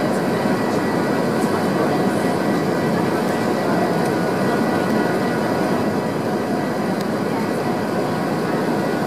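Steady cabin noise of an airliner on its approach to land: a constant rush of engine and airflow noise heard inside the cabin, with a faint steady high whine.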